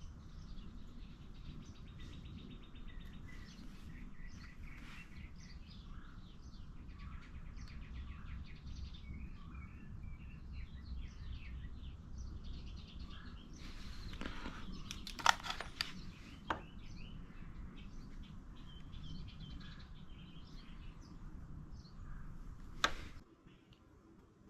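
Small birds chirping over a steady low background rumble, with a few sharp clicks, the loudest about two-thirds of the way through. The background cuts off abruptly near the end.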